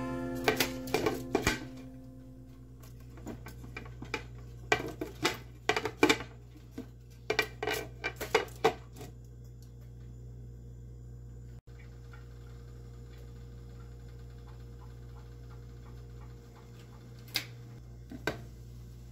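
Glass pot lid clinking and knocking against the metal rim of a steaming pan as a hand moves it by its knob. A quick run of sharp clinks fills the first nine seconds, and two more come near the end, over a steady low hum.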